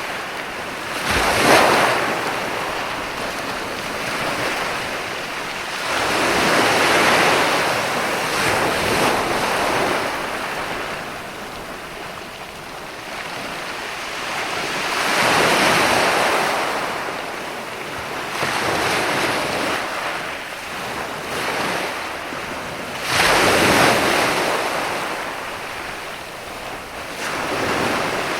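Ocean surf: waves breaking and washing back in slow swells every several seconds, with sharper crashes about a second in and again about 23 seconds in.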